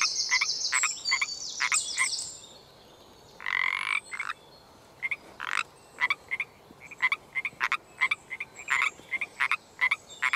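Frogs calling: short croaks repeating several times a second, with high rapid chirps over the first two seconds and one longer call about three and a half seconds in.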